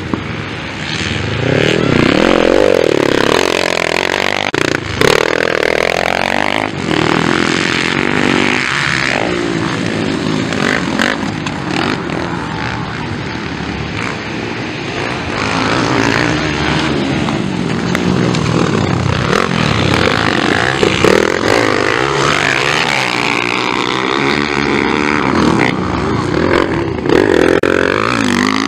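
Several motocross bikes racing, their engines revving up and falling back over and over, overlapping as they pass.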